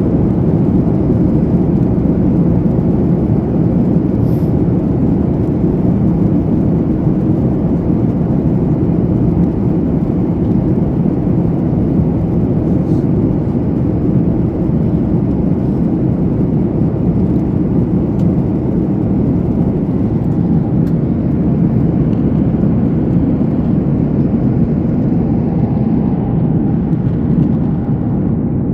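Steady low rumble of airliner cabin noise, the engines and airflow heard from inside the cabin.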